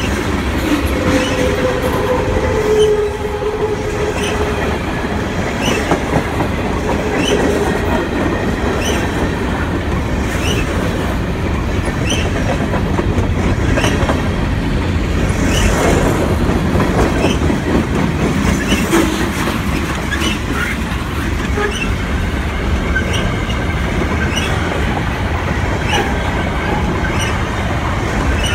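Freight train's tank cars and covered hopper cars rolling past in a steady rumble, with wheels clicking over a rail joint about once a second. A brief squeal of wheels on rail comes near the start and again later.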